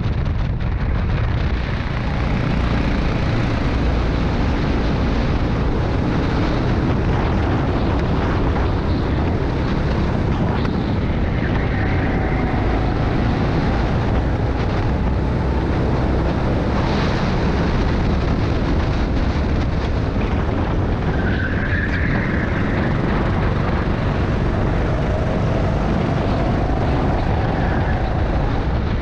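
Rental go-kart engine running hard at racing speed, mixed with heavy wind rush on the onboard microphone. The engine note climbs a couple of times as the kart accelerates.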